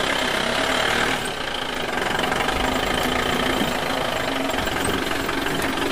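Steady vehicle engine running sound, the sound given to a toy JCB backhoe loader moving along a toy road.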